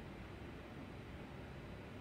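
Faint steady hiss of room tone, with no distinct sounds standing out.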